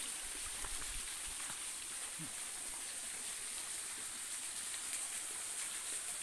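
Steady hiss of a small waterfall trickling over rock into a pool.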